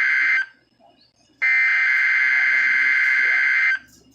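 Emergency Alert System digital header (SAME) on a NOAA weather radio broadcast, sent to open the Required Weekly Test: harsh, buzzy data bursts. One burst cuts off just under half a second in, and after about a second of near silence a second burst runs for about two and a half seconds, then stops.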